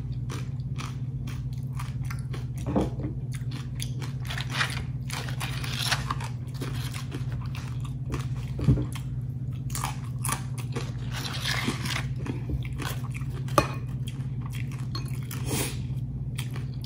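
Crisp tortilla chips being bitten and chewed close to the microphone: irregular crunches one after another, over a steady low hum.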